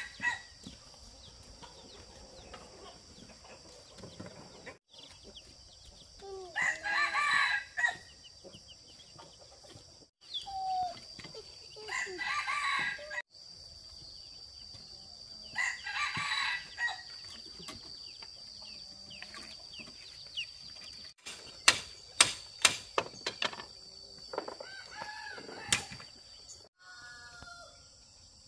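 A rooster crowing several times, a few seconds apart, over a steady high-pitched insect drone. Later comes a run of sharp clicks or knocks.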